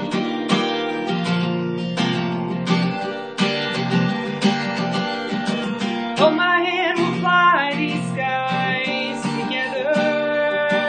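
Acoustic guitar strummed in a steady rhythm, with a man's singing voice joining about six seconds in, its held notes wavering with vibrato.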